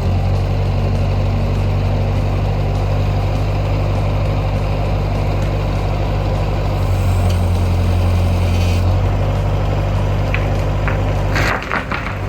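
Skid steer engine running steadily under load, working harder for a couple of seconds past the middle. Near the end the engine sound drops away and a few sharp knocks follow.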